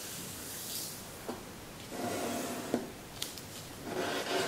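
A sheet of Kami origami paper being folded by hand: fingers rub and smooth along the creases with a dry rustle, in two longer passes, one about two seconds in and one near the end, with a few small taps between.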